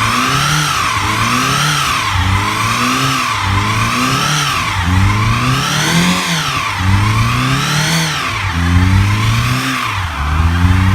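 Honda Civic's four-cylinder engine revved hard over and over during a burnout, its pitch climbing and dropping about once a second as the spinning tires are worn down.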